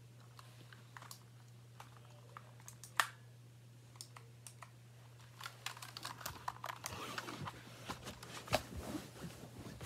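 Keys of a Razer Huntsman Mini gaming keyboard being pressed: a few scattered key clicks, then fast, dense typing in the second half. A steady low hum runs underneath.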